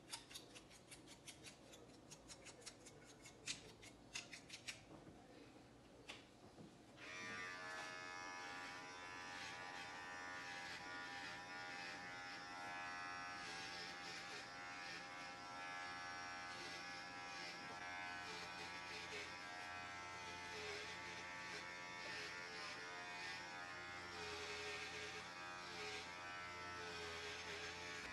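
A series of sharp, irregular clicks, then about a quarter of the way in electric hair clippers switch on and buzz steadily as they are run through short hair on the top of the head.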